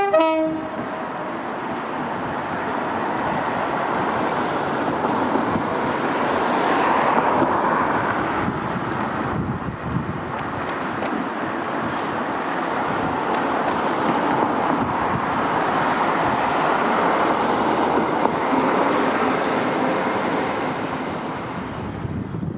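Electric passenger train running through the station: a steady rumble and rush of wheels on rail that swells twice. Faint clicks of wheels over rail joints come midway.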